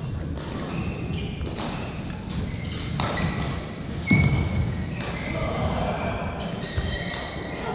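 Badminton hall play: a string of knocks from shuttlecocks struck by rackets, mixed with short high shoe squeaks on the court mat. The loudest thump comes about four seconds in.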